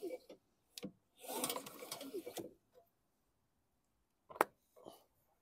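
Honda GCV160 mower engine pulled over once on its recoil starter with the spark plug out, for a spark check: a whirring, ratcheting spin of about a second with no compression to slow it. A single sharp click follows near the end, with a few faint ticks.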